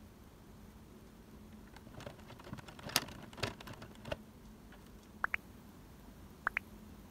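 Light plastic parts clicking and rattling for about two seconds, loudest around the middle, followed by short high chirps in quick pairs, twice, about a second apart, each pair rising in pitch.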